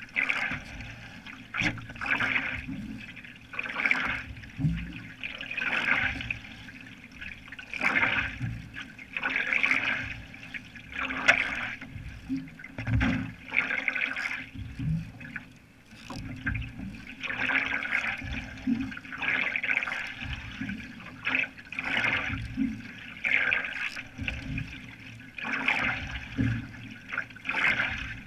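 Single-blade canoe paddle stroking through lake water: a rhythmic splash and rush of water with each stroke, swelling about every two seconds.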